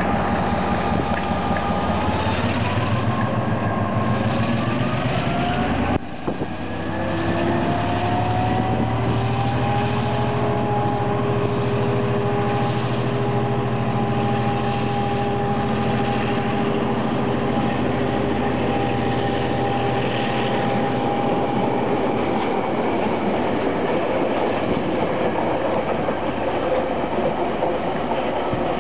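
DC class diesel-electric locomotive's engine notching up as the train departs. Its note rises over the first few seconds, breaks off briefly about six seconds in, then rises again and holds steady. It gives way to a rougher rumble as the train draws away in the last few seconds.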